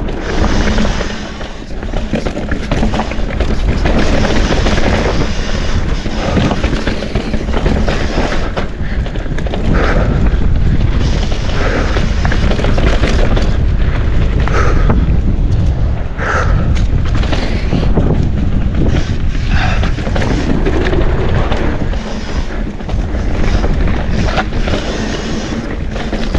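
Mountain bike riding fast down a dirt trail, heard from a camera on the bike or rider: loud wind buffeting on the microphone over tyre rumble and the bike rattling and knocking over bumps.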